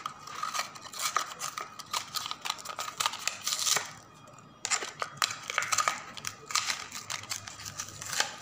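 A diecast toy car's blister pack being torn open: cardboard tearing and plastic crinkling, with many small clicks and two longer scratchy stretches, one around the middle and one later on.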